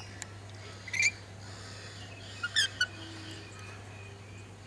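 Short, sharp bird calls: one chirp about a second in, then a quick run of three about two and a half seconds in.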